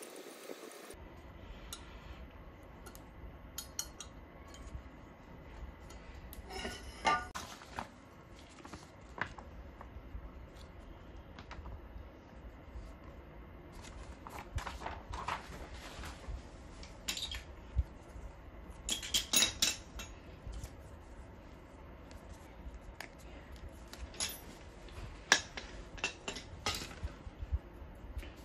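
Steel monitor-stand parts and screws clinking and rattling as they are handled and set down, in scattered clicks and short bursts of rattling.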